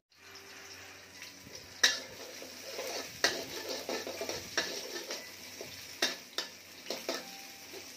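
Sliced shallots, garlic and chillies frying in hot oil in a metal wok, with a steady sizzle, while a spatula stirs them and scrapes and clanks against the pan about once a second.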